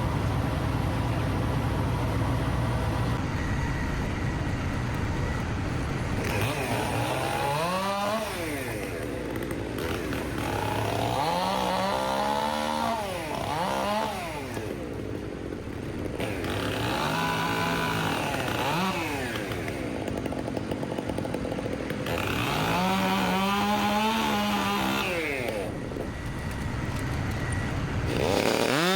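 Chainsaw revving and cutting in four spells, its pitch climbing and dropping within each, over a steady low engine hum in the first few seconds.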